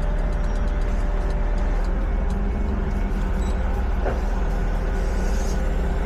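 Passenger train running, heard from inside the carriage: a steady low rumble with a faint hum, and a single short click about four seconds in.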